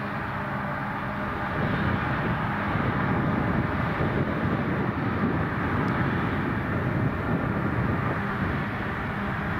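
Claas self-propelled forage harvester chopping grass and blowing it into a trailer, with a tractor running alongside: a steady machinery drone whose engine tones give way to a louder, denser rush about a second and a half in.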